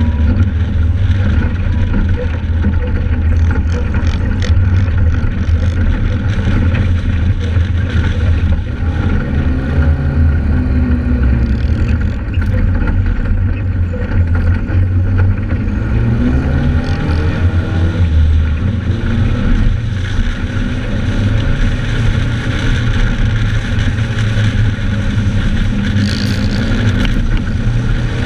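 Joyner 1100 Sand Viper sand rail's engine running under load while driving over sand, with wind noise on the microphone. The engine note rises and falls with the throttle around the middle.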